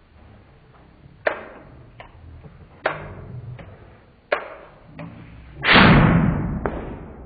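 Homemade aerosol-fuelled combustion cannon: a run of about six sharp clicks, one roughly every three-quarters of a second, as the igniter is worked. A little over five seconds in, the cannon fires with a loud boom that dies away over about a second, launching a tennis ball.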